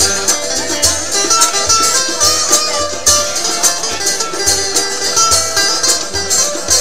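Acoustic guitar music with a steady beat.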